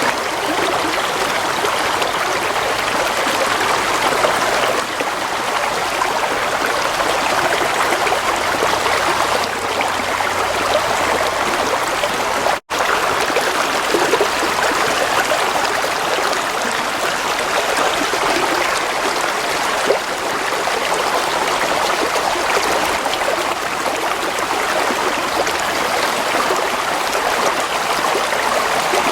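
Stream water flowing and trickling in a steady, even babble. It breaks off for an instant about halfway through.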